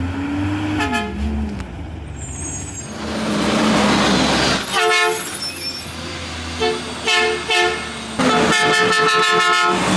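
Garbage truck horn honking over the truck's running engine: several short honks, three of them close together around seven seconds in, then a long steady blast from about eight seconds in.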